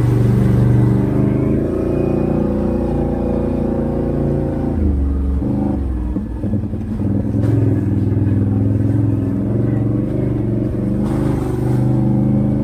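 Can-Am Outlander 650 ATV's V-twin engine running loud through an aftermarket Straightline Performance exhaust that sounds like a straight pipe. The note holds steady, falls off briefly about halfway through, then picks back up.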